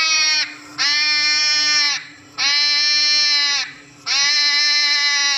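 Hedgehog crying: drawn-out, steady-pitched cries, the first cut short and then three more of a little over a second each, separated by short pauses.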